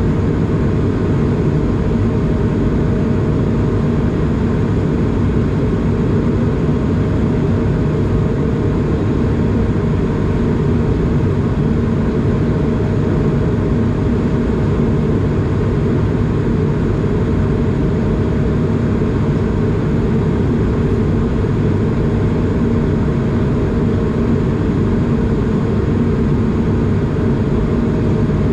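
Cabin noise inside an Airbus A220 during the climb after take-off: the steady, even roar of its Pratt & Whitney PW1500G geared turbofan engines and rushing airflow, with a faint steady hum running through it.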